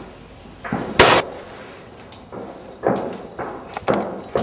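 One sharp, loud bang about a second in, followed by a series of lighter knocks and clicks.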